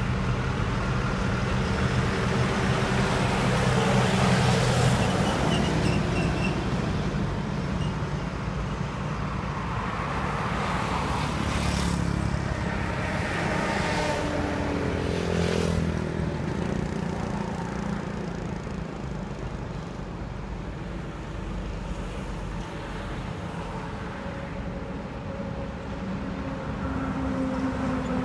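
Highway traffic driving past close by: trucks, cars and motorbikes, a steady drone of engines and tyres that swells as each vehicle passes. It is quieter for a while past the middle, then builds again near the end as a truck approaches.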